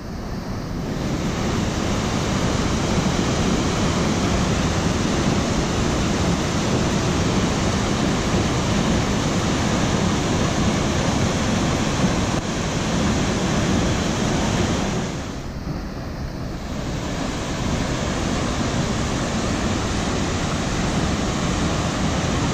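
Steady rushing of Tarawera Falls, a large waterfall pouring from a cliff face and cascading over boulders, with a brief drop in level about two-thirds of the way through.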